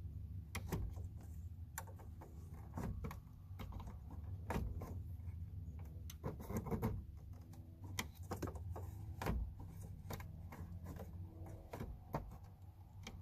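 Irregular small clicks, taps and rattles of metal tweezers fumbling against the plastic of a truck's instrument cluster, trying to grip an indicator bulb deep inside, over a low steady hum.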